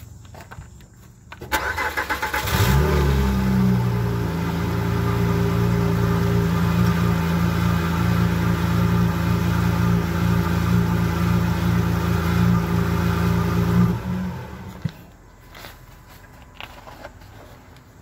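Car engine cranked by the starter, catching about a second later with a brief rev, then idling steadily until it is shut off near the end. The exhaust pipe, its small leak sealed with JB Weld, no longer makes the rustly leak sound; it is still loud because the exhaust has no resonator.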